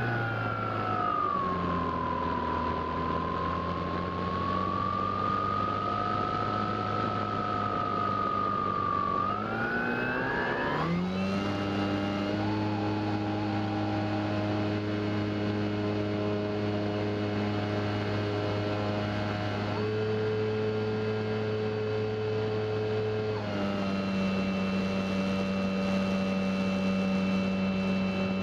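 Brushless electric motor and propeller of an RC plane in flight, heard from on board: a whine that sags and recovers over the first several seconds, then rises sharply about ten seconds in and runs steady, stepping in pitch a couple of times with throttle, over a rush of wind noise.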